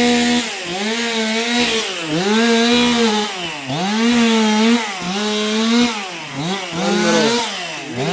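Two-stroke chainsaw running hard, its engine speed sagging and picking back up roughly once a second.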